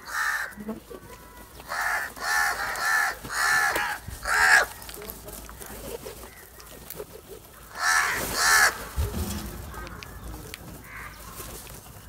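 A flock of house crows cawing: harsh caws in quick runs, most between about two and five seconds in and a pair near eight seconds, with fainter calls between.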